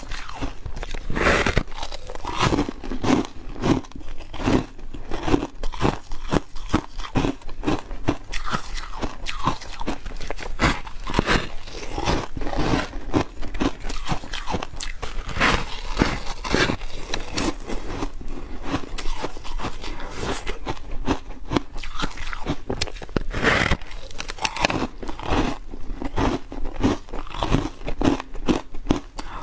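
Foam ice being bitten and chewed: a continuous run of crisp, irregular crunches.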